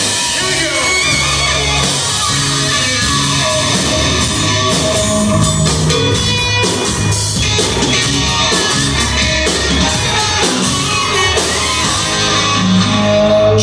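Hard rock band playing live at full volume: electric guitar with bass guitar and a drum kit.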